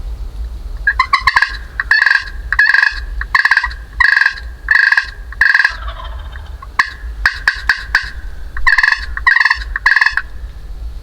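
Turkey calling close by: a string of loud, short notes about two thirds of a second apart, then a quicker run of notes, then three more, over a steady low rumble.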